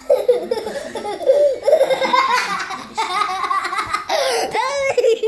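Young children laughing, high-pitched.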